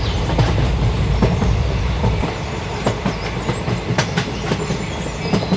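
Toy steam-style train running along a plastic track: a steady running noise with frequent short clicks.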